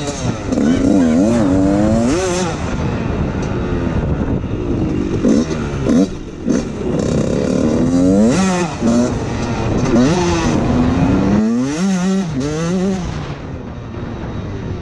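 Dirt bike engine revving up and down as it is ridden, the pitch rising and falling every second or two, with a brief drop off the throttle about eleven seconds in.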